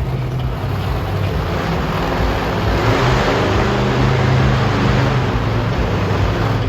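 Monster truck engine running, a steady low engine note with a swell of broad noise that builds and peaks in the middle.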